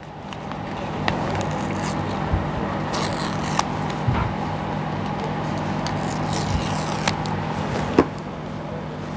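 Paper-and-cardboard handling noise from an iPhone 14 Pro retail box: the paper tear strips are pulled off and the box is turned in the hands, scraping and crackling with a few sharp clicks, over a steady low hum.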